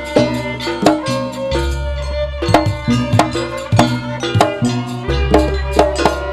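Javanese jaranan ensemble music: fast, sharp hand-drum strokes over ringing metal gong-chime notes and a deep gong hum that drops out and returns.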